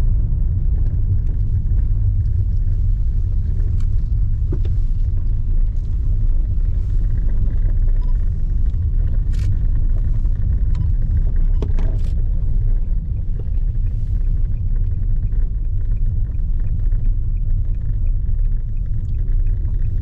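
Road noise inside a moving car's cabin: a steady low rumble of tyres and engine, with a few faint clicks.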